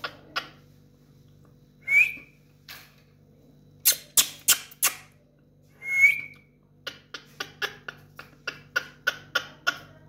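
Indian ringneck parakeet calling: runs of short chattering calls about three a second, two clear whistled notes, and a few loud harsh screeches in the middle.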